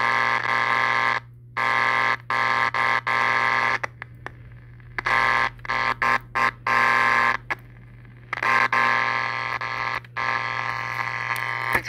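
Vega 404 transistor radio's speaker giving a loud, harsh buzz that cuts in and out irregularly, about seven or eight times, over a steady low hum.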